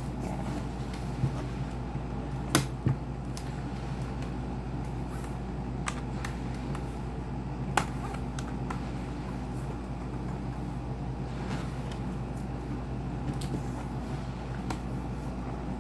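A few scattered sharp clicks and taps from a laptop being handled and opened, over a steady low hum.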